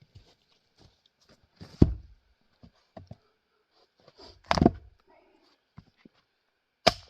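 Three heavy wooden thunks about two and a half seconds apart, with lighter knocks between them, from pieces of grand fir firewood.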